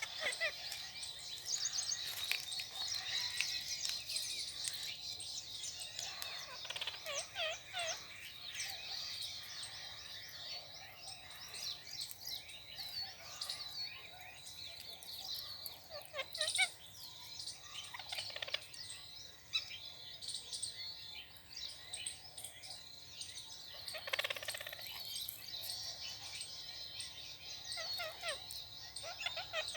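A flock of parrots squabbling over food, giving many overlapping shrill chirps and squawks with some harsher lower screeches.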